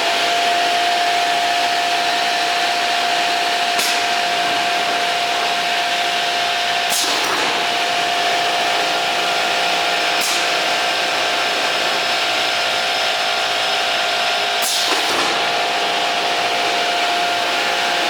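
CTD DM200 dual miter saw running, its two 2 hp Baldor electric motors spinning the 10-inch blades: a steady whir with a steady hum tone, and a few brief sharp sounds.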